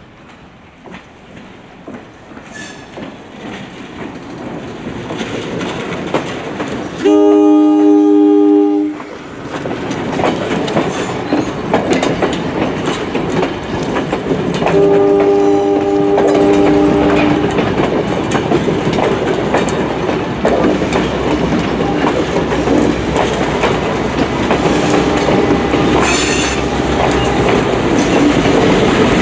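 Wabco AA-2 air horn, taken from an RS3L, on GP38 locomotive 7706, sounding two long two-tone blasts, about seven and fifteen seconds in, then fainter short blasts. Under the horn the train approaches and passes: a rumble building steadily, the diesel engine running, wheels clacking over rail joints and squealing.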